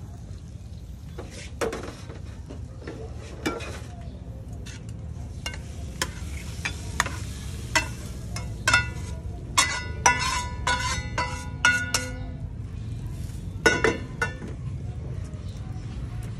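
Metal spatula scraping and clinking against a frying pan and a ceramic bowl as cooked shrimp are scraped out of the pan, with scattered sharp clicks and a run of ringing clinks in the middle. A steady low hum runs underneath.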